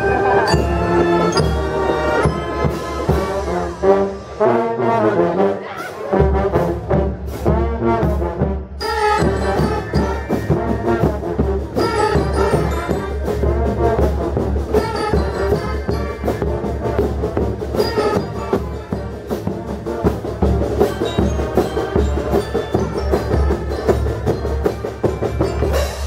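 Marching band playing: trumpets and trombones carry the melody, and a steady low drum beat comes in about six seconds in and keeps going.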